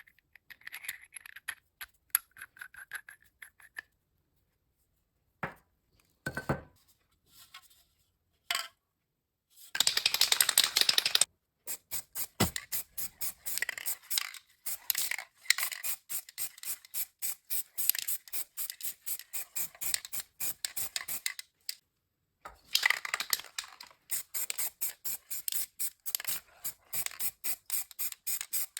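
Rapid, rhythmic back-and-forth scraping strokes, about three a second, starting about ten seconds in and pausing briefly once, after a few scattered clicks and small knocks of handling parts.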